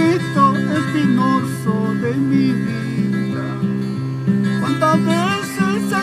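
Acoustic guitar playing a song's opening: a steady, even pattern of bass notes, with a wavering melody line above it.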